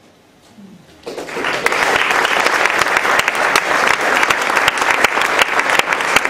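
Audience applauding, breaking out about a second in and going on as dense, steady clapping.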